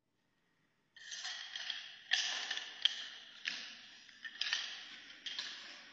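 Nunchaku being swung and twirled: a run of swishing, rattling strokes with several sharper ones about a second apart, starting about a second in.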